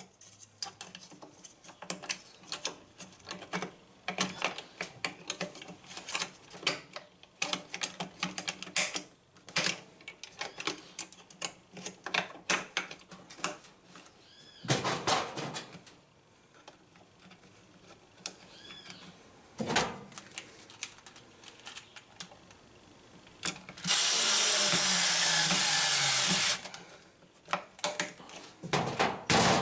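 Repeated clicks, taps and knocks of plastic and metal washing-machine parts being handled and fitted by hand, then late on a cordless screwdriver runs for about two and a half seconds.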